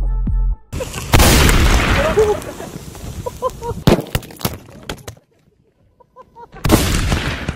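Background music cuts off. About a second later a large mass of sodium metal explodes as it reacts with ice and water: a sudden loud blast that dies away over a few seconds, with sharp cracks and voices calling. A second loud blast starts near the end.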